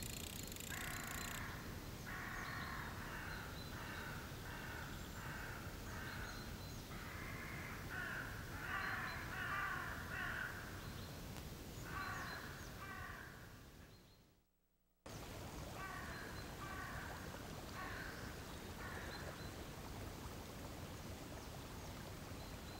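Crows cawing over and over in quick series. About two-thirds of the way through the sound fades to a moment of silence, then cuts back in with more caws.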